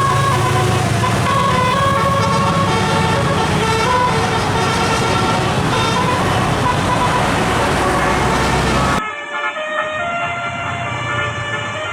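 Bus musical air horn (telolet) playing a rapid melody of short stepping notes over the bus engine running. About nine seconds in the sound cuts off abruptly and a quieter telolet melody carries on with little engine underneath.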